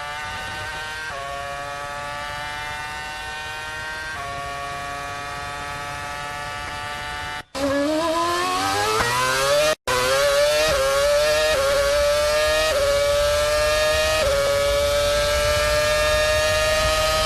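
Formula 1 car engine at high revs, heard onboard, with upshifts that drop the pitch for a moment before it climbs again. After a short cut about seven and a half seconds in, a louder F1 engine accelerates hard through quick gear changes, its pitch rising fast. It then runs at near-steady high revs with small upshift steps.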